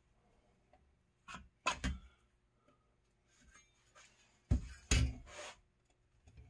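Handling knocks and clicks from a screen window frame being lifted and set back down on a vinyl window frame, a few light clicks followed by two louder knocks about four and a half and five seconds in.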